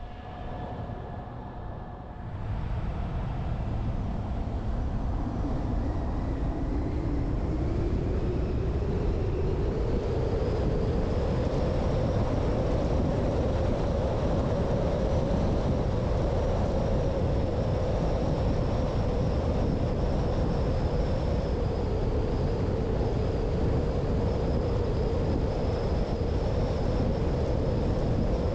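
Vehicle driving: low road and engine rumble with a hum that rises in pitch as it speeds up over the first several seconds, then holds steady at cruising speed.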